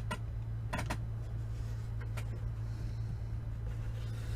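A few brief soft taps and rustles of a quilting ruler and fabric block being handled on a cutting mat, over a steady low hum.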